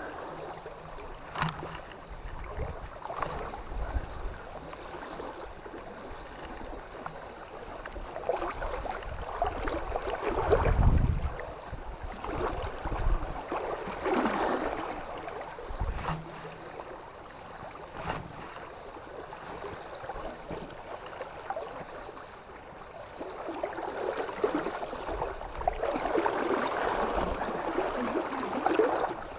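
River water sloshing and splashing in uneven surges, with wind gusts buffeting the microphone. The heaviest rumble of wind comes about eleven seconds in.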